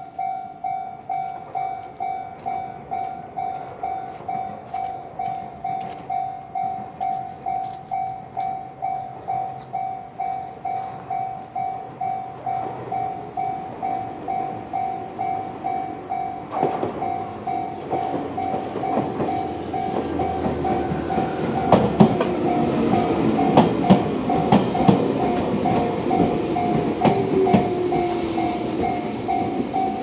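Japanese level-crossing electronic warning bell in the JR standard tone, ringing steadily at about two dings a second. From about halfway through, a Joshin Electric Railway 6000 series electric train grows louder as it comes over the crossing, with wheels clacking over the rail joints.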